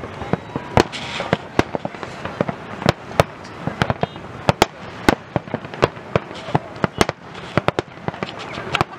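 Aerial firework shells bursting in a rapid, irregular string of sharp bangs, several a second, over a steady background hiss.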